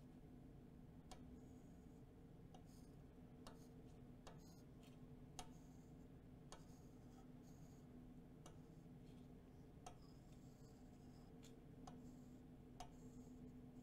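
Faint scratching and light ticks of a soapstone marker drawing letters on a steel plate, about a tick a second, over a low steady hum.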